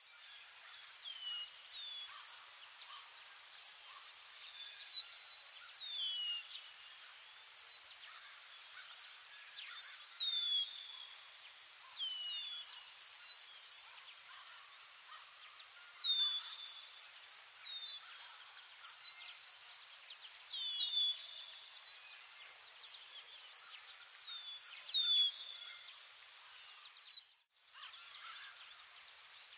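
Insects chirring in a high, steady, evenly pulsing chorus, with a bird repeating short high chirps that fall in pitch every second or two. The sound cuts out briefly about 27 seconds in.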